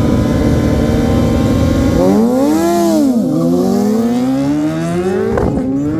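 Sport motorcycle engine at a drag strip, held at a steady note, then from about two seconds in revving up and dipping before climbing steadily under full throttle, with a sharp drop in revs at a gear change near the end.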